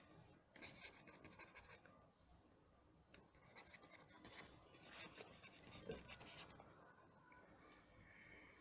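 Faint scratching of a stylus writing on a tablet, in short runs of strokes.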